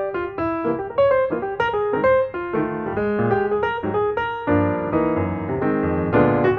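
Background piano music, a steady flow of quick notes that thickens into fuller chords in the second half.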